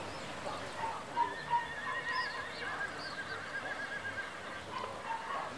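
An animal's long call with a wavering pitch, in two parts, the second a little lower.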